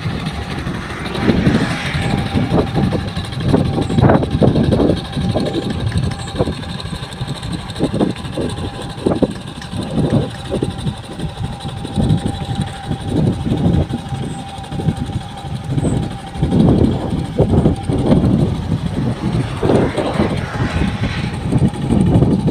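Old two-wheel hand tractor's engine running under load as it pulls a moldboard plough through flooded rice-field mud, its level rising and falling unevenly.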